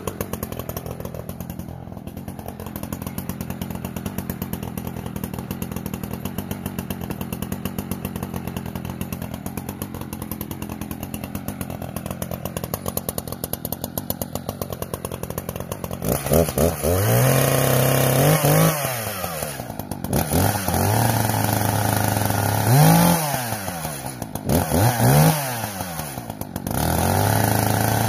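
Echo CS-590 Timber Wolf chainsaw's 59.8 cc two-stroke engine idling with an even, rapid pulse, warming up after a cold start. About halfway through it is revved up and dropped back several times.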